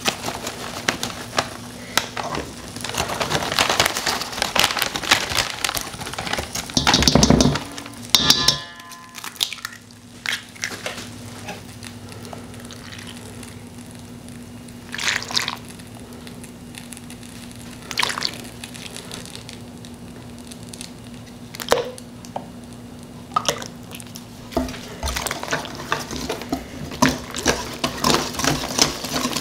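Kitchen prep noise in a stainless steel mixing bowl: a plastic bag of waffle mix crinkling as it is emptied, then a few sharp knocks and milk poured from a carton, and near the end a wire whisk rattling quickly against the metal bowl as the batter is mixed.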